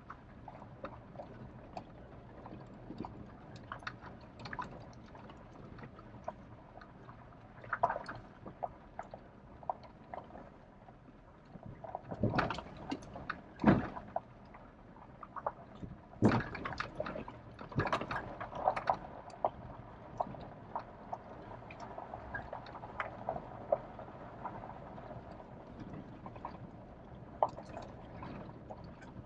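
Truck heard from inside the cab as it creeps along a rough dirt trail: a low steady drive noise with frequent clicks, knocks and rattles as it works over the bumps, the loudest run of thumps coming about halfway through.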